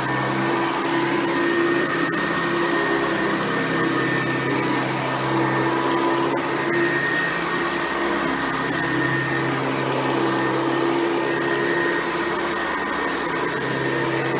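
Hoover Convertible upright vacuum cleaner with a top-fill Type A bag running steadily while cleaning, a motor hum with a high whine whose tones fade and return every few seconds.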